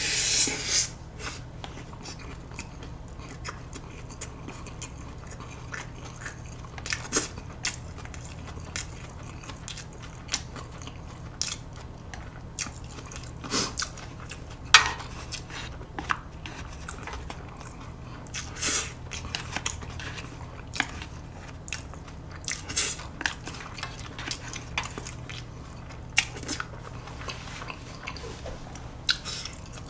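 Close-miked chewing of a mouthful of food, with a louder noisy bite right at the start and then sharp, short mouth clicks scattered every second or two. A faint steady low hum runs underneath.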